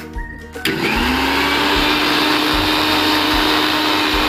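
Electric mixer grinder blending egg and oil into mayonnaise in its steel jar. The motor starts a little over half a second in, spins up briefly and then runs steadily at speed.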